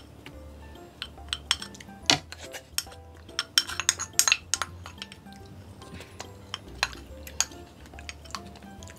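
Chopsticks knocking and scraping against a ceramic rice bowl as rice is tipped out onto a plate, with a quick run of clinks about three and a half to four and a half seconds in.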